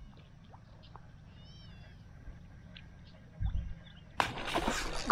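A snook striking a soft plastic mullet lure at the surface: a sudden loud splash about four seconds in, after near-quiet water.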